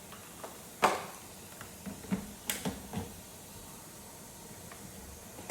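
Kitchen handling noises: a few sharp knocks and clicks of cookware and utensils being moved about, the loudest just under a second in and another about two and a half seconds in, over a low steady hiss.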